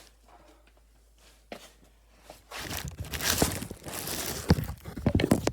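Quiet at first, then about two and a half seconds in, loud rustling and scraping close to the microphone, with several sharp clicks, like hands handling things right at the microphone.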